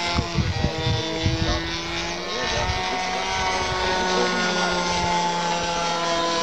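Radio-controlled model airplane's engine and propeller running steadily in flight, a droning tone whose pitch shifts slightly as the plane passes. There is some low rumbling in the first second and a half.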